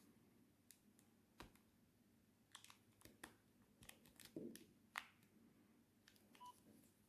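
Faint clicks of a Nokia 3120's keypad buttons being pressed, a run of irregular taps, with a brief beep near the end.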